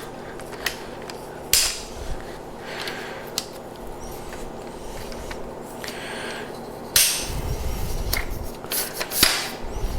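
Lightweight tripod's flip-lever leg locks clicking open and snapping shut as the leg sections are pulled out, with scraping and rubbing of the legs being handled. A few sharp clicks, the loudest about a second and a half in and again at seven seconds, followed by a low rumble of handling.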